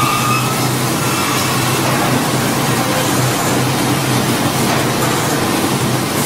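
Large band saw and powered roller conveyor in a sawmill, running steadily: a constant mechanical drone with a steady low hum.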